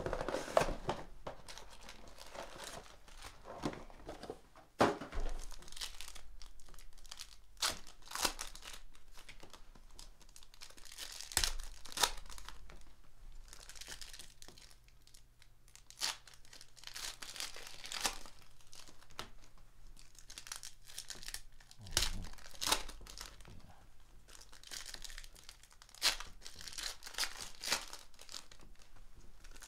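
Foil wrappers of Panini Ascension basketball card packs being torn open and crinkled by hand, in irregular sharp crackles and rustles.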